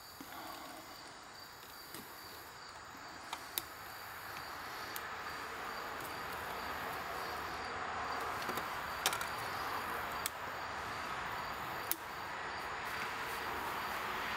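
A few light metallic clicks as piston rings are worked onto an engine piston by hand, over a steady hiss that slowly grows louder and a faint, high, pulsing chirp.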